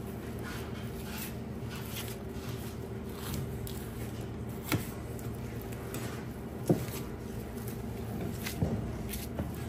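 Butcher's boning knife trimming a beef bottom round on a cutting board: soft cutting and handling of the meat, with a few short sharp knocks, over a steady low hum.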